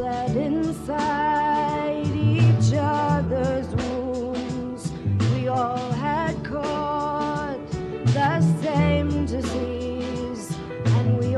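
Live folk-rock song: a singing voice over a band with bass and a steady drum beat.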